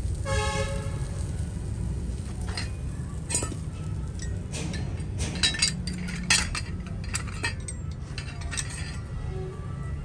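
Cast metal hand-pump top plates clinking against one another as they are handled and set down, in scattered sharp knocks over a steady low rumble. A short pitched tone sounds at the very start.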